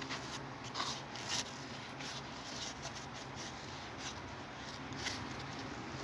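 Hands handling a plastic vacuum-cleaner accessory: faint rustling and a few soft clicks, over a low steady hum; the vacuum motor is not running.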